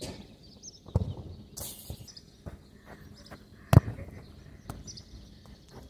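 Footsteps and ball touches on artificial turf during a one-on-one football dribble: scattered light thuds, a firmer one about a second in and a sharp loud thump a little before the end.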